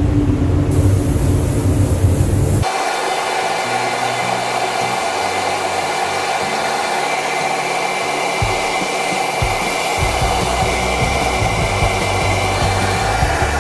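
Spray-painting in a paint booth: a steady rushing hiss of a compressed-air paint spray gun and the booth's air extraction, with a few steady tones over it. The sound changes abruptly about three seconds in, from a heavy low rumble to a thinner, even hiss.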